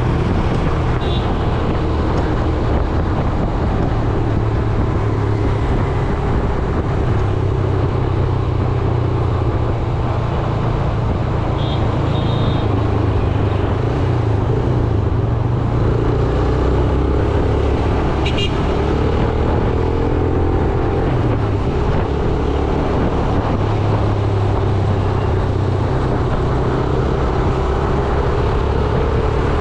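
Yamaha YBR 125G motorcycle's single-cylinder four-stroke engine running under way in traffic, its pitch rising and falling with the throttle, over a steady hum of road traffic. A few brief high beeps sound now and then.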